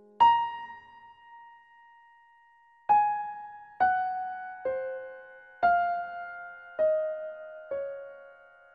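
Background music: slow single notes on a piano-like keyboard, each struck and left to ring. One long note first, then six more about a second apart, stepping mostly downward in pitch.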